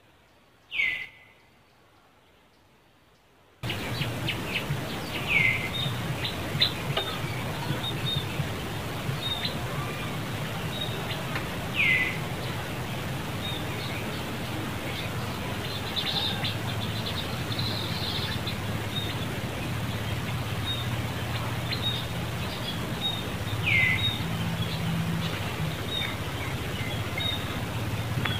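A bird's short whistled call, falling sharply in pitch, repeated about five times at uneven intervals. Behind it is a steady outdoor ambience of low hum and faint high chirps, which cuts in suddenly a few seconds in.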